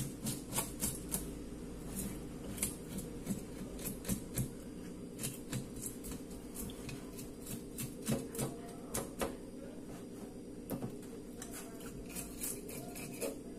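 A dull knife scraping the scales off a snook, tail toward head, in quick irregular scratchy strokes with the scales clicking off, over a steady low hum.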